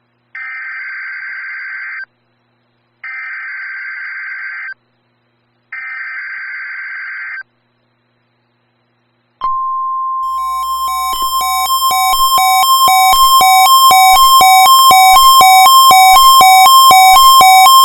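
NOAA Weather Radio required weekly test signal: three short bursts of screeching SAME digital header data, then the steady 1050 Hz warning alarm tone. Soon after the tone starts, a pulsed electronic alarm joins it at about two beeps a second and grows steadily louder.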